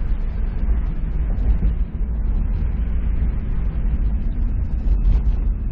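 Honda S2000 with its JDM F20C engine, heard from inside the cabin on the move: a steady low rumble of engine and road noise.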